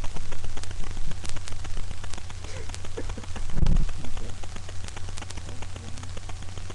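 Rustling and handling noise close to the microphone: scattered crackling clicks over a steady low hum, with a muffled thump about three and a half seconds in.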